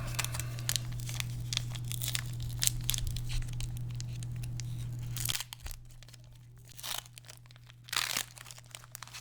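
Foil Pokémon booster pack wrapper being crinkled and torn open, a dense crackling for about five seconds, then a few short rustles.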